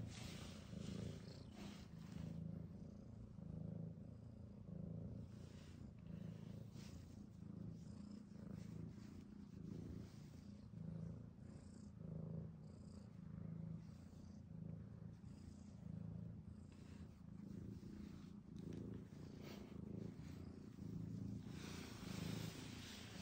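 Domestic cat purring close up, a steady low purr that swells and fades with each breath.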